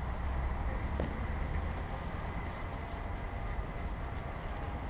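Outdoor background noise, mostly a low, unsteady rumble of wind buffeting the camera's microphone, with a faint steady high tone.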